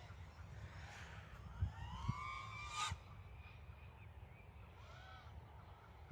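Brushless motors and propellers of a 5-inch FPV miniquad whining in flight, the pitch rising and falling as the throttle changes, loudest about two to three seconds in.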